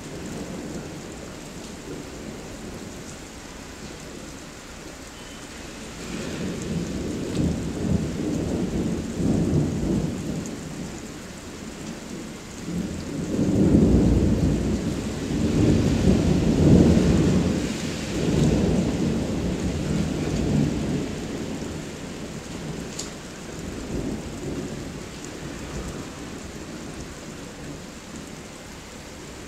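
Thunder rolling over steady rain: a long low rumble builds about six seconds in, is loudest around the middle, and dies away over the following several seconds while the rain goes on.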